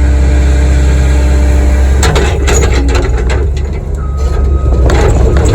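Kobelco SK85 excavator's diesel engine running steadily under load while it digs. A few sharp knocks come about two seconds in, and a brief steady whine comes about four seconds in.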